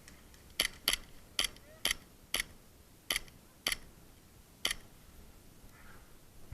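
Airsoft gun fired in single shots: eight sharp clicks, about two a second with uneven gaps, stopping after about five seconds.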